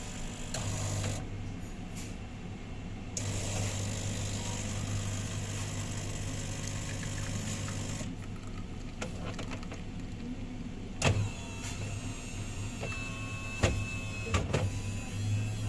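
Automatic coffee machine running: a steady low pump buzz throughout, with a hiss from about three to eight seconds in, then a few sharp clicks and a brief thin tone in the last few seconds.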